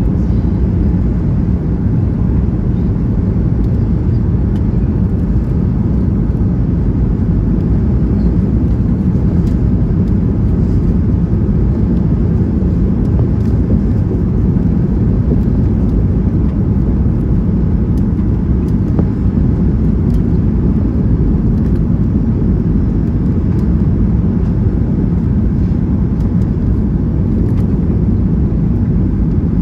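Steady cabin noise of a Boeing 757-200 on final approach, heard inside the cabin behind the wing: an even, low rumble of the engines and airflow with flaps extended.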